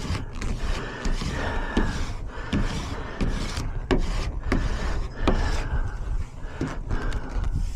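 Repeated rubbing strokes, about one a second, with sharp clicks between them: vinyl sign lettering being rubbed down onto the van's body panel.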